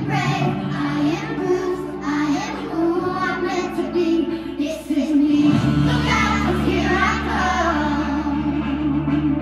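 Children singing a song together over a recorded backing track played through a portable speaker. A deep bass line comes in a little over halfway through.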